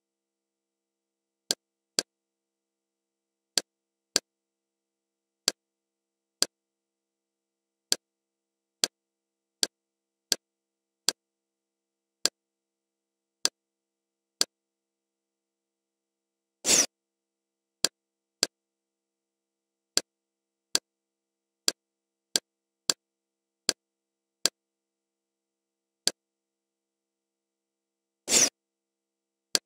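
Kodi media-centre menu navigation sounds: short sharp clicks at uneven intervals, one every half second to a second and a half, as the interface scrolls through lists. Twice, about halfway through and near the end, a longer, louder burst of noise.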